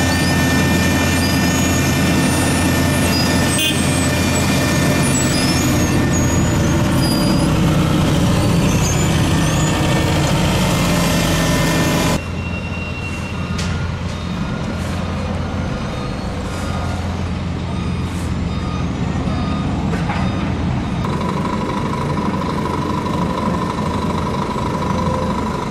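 Heavy paving machinery running: the engines of a Bomag BF 800 C asphalt paver and a dump truck feeding it, a steady low drone. About halfway through the sound drops slightly in level and changes character, and a steady high tone joins in near the end.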